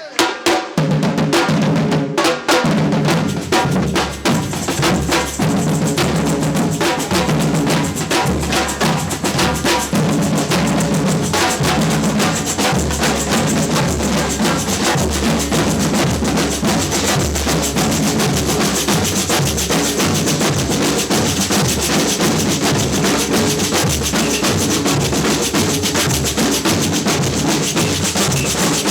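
A samba percussion band playing a steady rhythm together, with bass drums and snare drums, starting in full at the outset.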